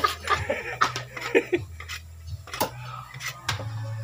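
Back of a bolo blade striking a husked coconut held in the hand: several sharp knocks, roughly a second apart, as the shell is cracked open to drain its water.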